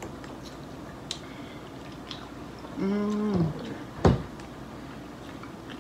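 Mukbang eating sounds: faint clicks of forks on dishes, and a woman's short, steady "mmm" of enjoyment about three seconds in, followed by a sharp knock about a second later.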